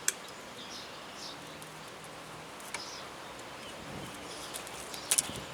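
Quiet outdoor background with faint chirps, broken by a few sharp clicks: one just after the start, one near the middle, and a louder pair near the end.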